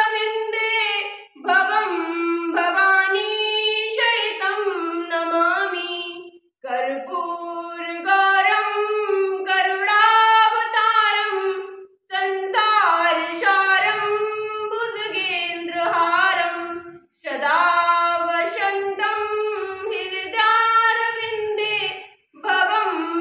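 A young woman singing a devotional hymn (vandana) to Lord Shiva, unaccompanied, in phrases of about five seconds with short breath pauses between them.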